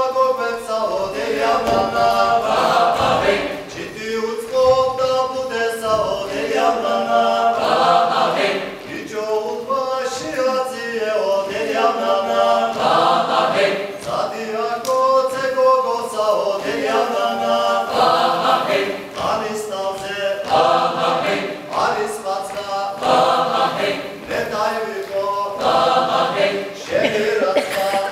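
Mixed choir of men's and women's voices singing a cappella in several parts, in phrases of about two seconds.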